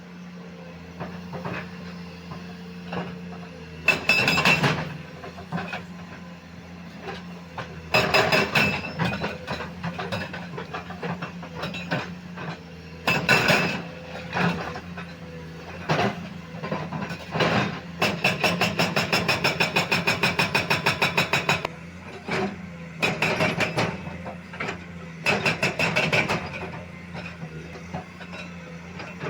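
Komatsu PC210 excavator's diesel engine running steadily, with repeated loud bursts of metal clanking and scraping from the machine working. Past the middle comes a fast, evenly spaced metallic rattle lasting about three seconds.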